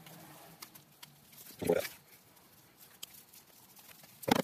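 A flat-blade screwdriver scraping and picking inside the end of a rubber coolant hose, clearing crushed fragments of the brittle plastic T-junction out of it. Faint scratchy clicks run throughout, with two short, louder sounds about 1.7 seconds in and near the end.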